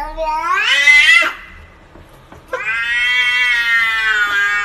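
Domestic cat yowling: a drawn-out call that rises in pitch and breaks off just over a second in, then after a short pause a second, longer and steadier yowl.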